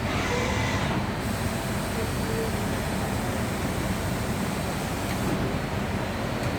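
Steady machine hum with a low drone, from a Huron K2X8-F 5-axis machining centre running, with a few short faint tones in the first couple of seconds.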